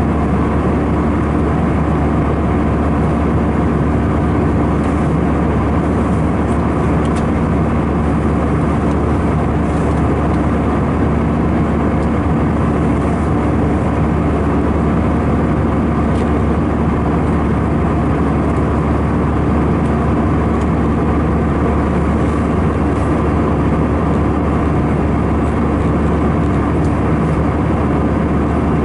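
Steady in-flight cabin noise of an Airbus A319-111: the drone of its CFM56 turbofan engines and the airflow around the fuselage, heavy at the low end, with a faint steady hum.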